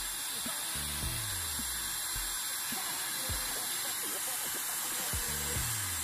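Dyson Supersonic hair dryer blowing steadily, an even hiss of air, over background music with a repeating low bass line.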